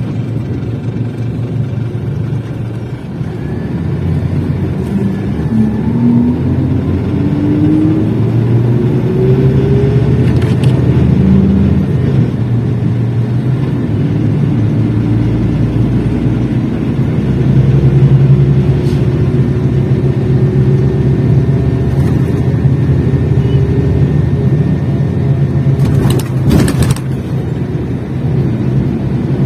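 Scania K380 coach's diesel engine running under load, its pitch rising steadily for several seconds as it accelerates, then holding level. A couple of sharp clicks near the end.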